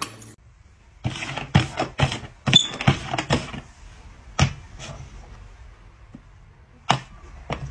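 Small cups knocking and clattering on a box top as they are set down and moved about: a quick run of knocks, then a few single knocks spaced out near the end.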